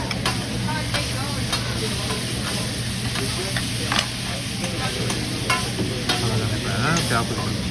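Food sizzling and frying on a hibachi (teppanyaki) griddle, with metal spatulas stirring and scraping across the hot steel and a handful of sharp clicks as they tap the griddle.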